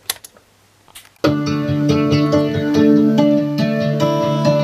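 A couple of sharp clicks over a faint low hum, then recorded music starts abruptly about a second in and plays loudly. It comes through a homemade class B transistor amplifier (2N3055/2955 output pair driven by a 741 op-amp) into a loudspeaker box, with the output stage running at zero quiescent bias current, as its builder says.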